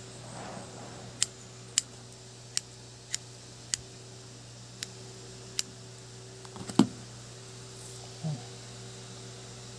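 Scissors snipping through the synthetic hair skirt of a handmade trolling lure, trimming it even: about eight sharp, separate snips at uneven intervals, the loudest about seven seconds in.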